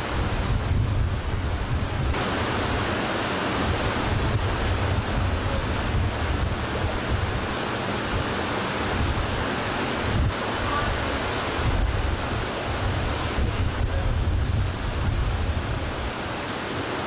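Strong wind buffeting the microphone, with a low fluttering rumble, over the rush and splash of floodwater surging against the ships' hulls.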